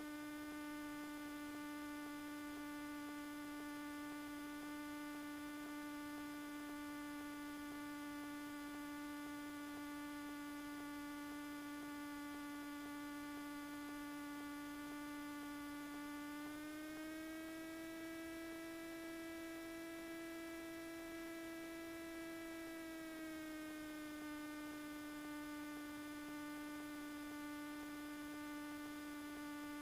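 Faint, steady electrical whine in the cockpit intercom audio of a taxiing Cessna 207, a pitched hum with many overtones that rises slightly in pitch about 17 seconds in and falls back about 24 seconds in as the engine speed changes. The sound is typical of alternator whine picked up by the intercom.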